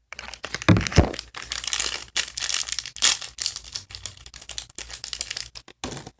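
Plastic and paper packaging crinkling and tearing as a small toy box is opened by hand, with sharp crackles and snaps.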